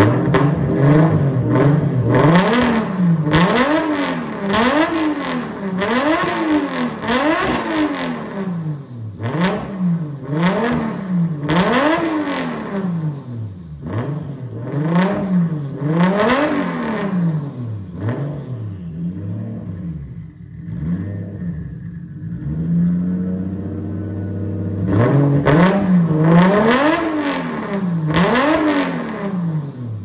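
Nissan Skyline R32's RB25 turbocharged straight-six, running through a straight 4-inch exhaust with no baffles, revved in quick throttle blips about once a second. It settles to a steady idle for several seconds past the middle, then is blipped again near the end. The owner says the engine doesn't run right and sounds a little funny, and suspects a failing head gasket because coolant is going missing.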